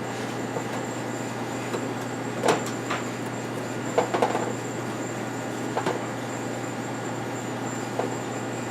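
Handling noise from working on a gas stove by hand: a few light knocks and clicks, the loudest about two and a half and four seconds in, over a steady low hum.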